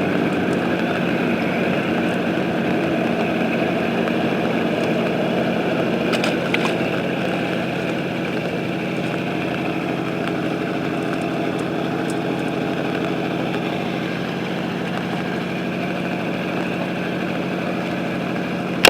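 An engine running steadily at an even, unchanging pitch, with a couple of faint clicks about six seconds in.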